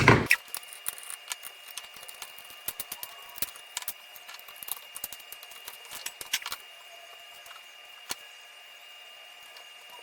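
Small metal tools and electronic parts being handled on a workbench: a loud knock at the start, then scattered light clicks and taps, over a faint steady high-pitched tone.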